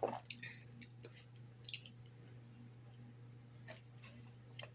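A few faint, short wet clicks and lip smacks from someone tasting a sweet fruit drink, over a low steady hum.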